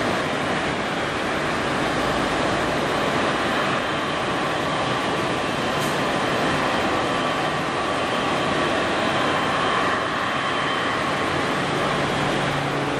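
Boeing 777-300ER's GE90-115B turbofan engines running at low thrust while taxiing: a steady rushing hum with a faint whine.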